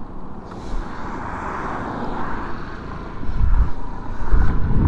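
Suzuki Burgman Street 125 scooter's single-cylinder engine running at a standstill, then the scooter pulling away about three seconds in, with a low wind rumble on the microphone growing as it moves.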